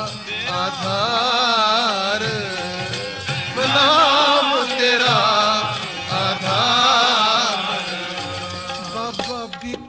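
Sikh kirtan: the singers draw out a long, ornamented melodic line without clear words, over rhythmic accompaniment, with a sharp strike near the end.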